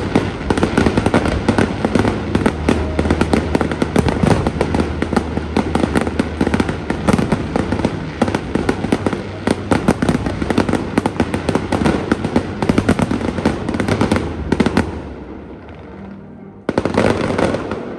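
Fireworks display: a dense barrage of rapid, overlapping bangs, many per second, that stops suddenly about fifteen seconds in, then one short final burst near the end.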